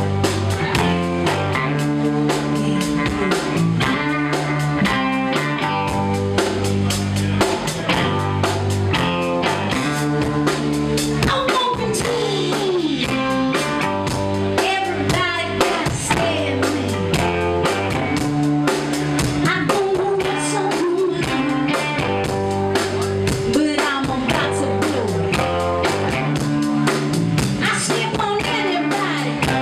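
Live rock-and-blues band playing: a woman sings lead into a microphone over two electric guitars and a drum kit beating a steady rhythm.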